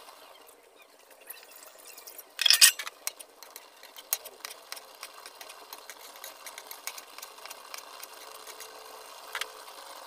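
Coconut milk poured from a bowl into a hot wok of fish, splashing loudly for about half a second, then the pan crackling with scattered sharp ticks as the sauce starts to cook.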